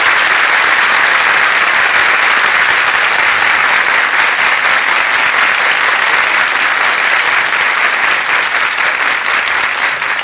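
A crowd applauding, a dense and steady clapping.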